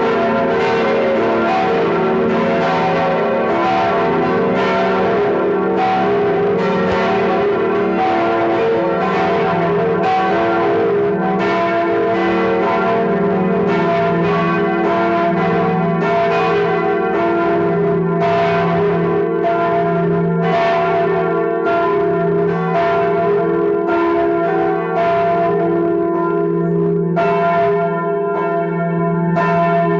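Several church bells ringing together in a full peal: overlapping strikes about once a second over a continuous ringing hum.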